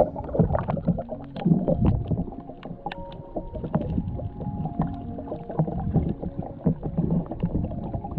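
Muffled underwater sound picked up by a camera held below the surface while snorkeling: low rumbling water movement with scattered knocks and clicks.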